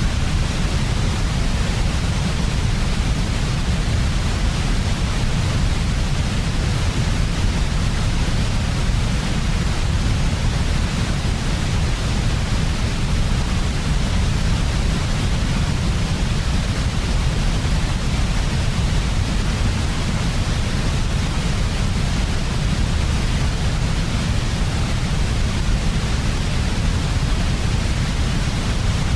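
Steady, unchanging sleep noise for babies, heaviest in a deep low rumble with a fainter hiss above it.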